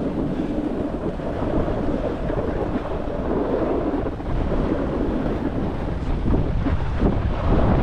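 Wind rushing over the camera's microphone during a snowboard run, mixed with the hiss of the board sliding on snow.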